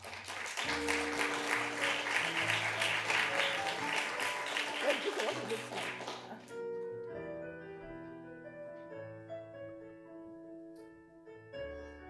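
Audience applause made of many hand claps over soft instrumental music with slow, held notes. The applause dies away about halfway through, leaving the music alone.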